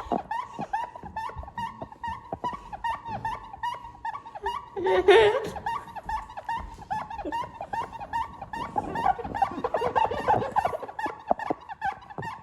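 A rapid, continuous run of short, high squeaks, several a second, with one louder, longer squeal about five seconds in.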